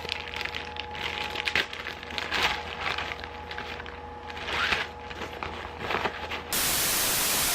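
Plastic mailer package being handled and opened, with irregular crinkling, rustling and small clicks. Near the end an even burst of hiss about a second long cuts in.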